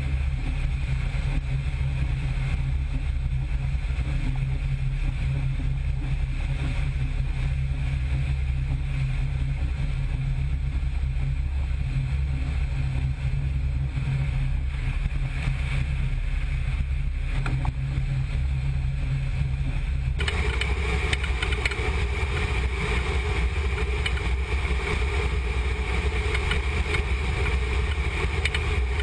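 Steady drone of a C-17 Globemaster III's four turbofan engines in flight, a deep hum with a hiss over it. About two-thirds of the way through the sound changes abruptly, turning brighter and more hissy.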